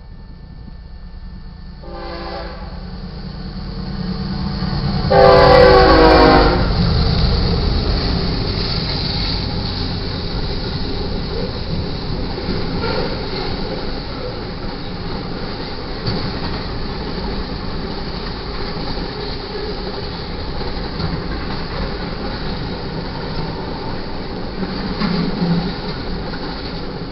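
Freight train led by a BNSF GE ES44C4 diesel locomotive. The locomotive's air horn gives a short blast about two seconds in, then a long, loud blast about five seconds in, while the train's rumble swells as the locomotives pass. Double-stack intermodal container cars then roll by with a steady rumble and wheel clatter.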